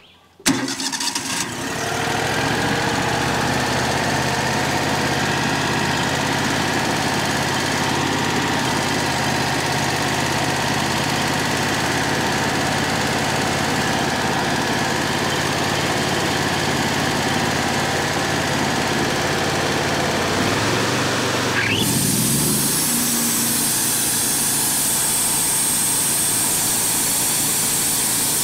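Wood-Mizer LT35HD sawmill engine starting about half a second in, then running steadily. About 22 s in the sound changes, with a quick rising whine, into a higher, hissier running sound as the throttle comes up and the band blade is engaged.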